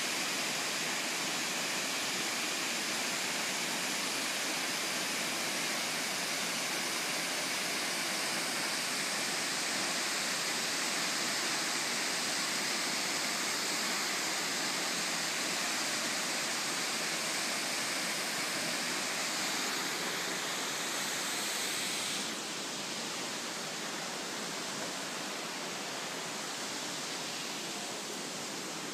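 Steady rushing of a waterfall pouring down a rock cliff, an even hiss with no other sound standing out. About three-quarters of the way through it turns a little quieter and duller.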